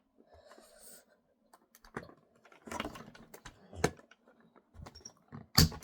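Irregular plastic clicks and knocks from parts of a Dyson vacuum cleaner being handled and pushed together, with one louder knock near the end.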